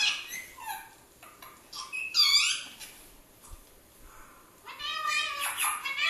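High-pitched animal calls played from a video on a laptop's small speakers: one loud call about two seconds in, then a quick run of calls near the end.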